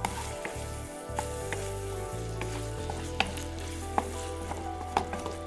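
Minced meat, onion and garlic sizzling in a frying pan while being stirred, a spatula knocking against the pan several times. Background music plays underneath.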